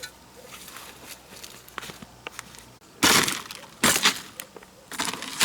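Crunching, crackling noise in short bursts: faint crackles at first, then a loud burst about three seconds in, another just before four seconds, and more crunching near the end.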